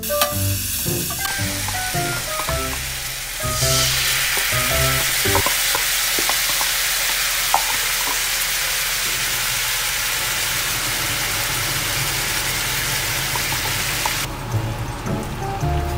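Red chili sauce and rice-paper-wrapped sausage skewers sizzling hard in a hot frying pan. The sizzle starts about a second in, grows louder a couple of seconds later and cuts off suddenly near the end, over light background music.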